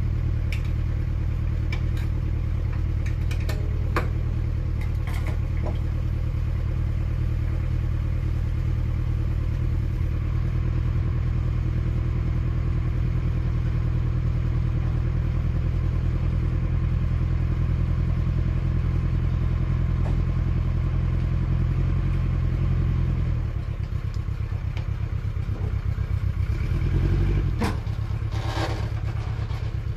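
1994 Geo Tracker's 8-valve 1.6 L four-cylinder engine idling steadily, with a few sharp metallic clicks of the tie-downs being released in the first five seconds. About 23 seconds in the engine note changes as the Tracker is driven back off the trailer, with a brief rev a few seconds later.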